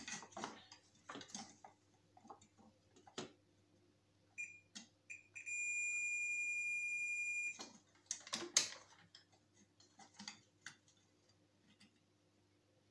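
Digital multimeter's continuity buzzer: two short high beeps, then one steady beep of about two seconds as the probes are held across the hair dryer's circuit, showing continuity that looks like a short circuit, put down to the heating element. Clicks and knocks of the probes being handled.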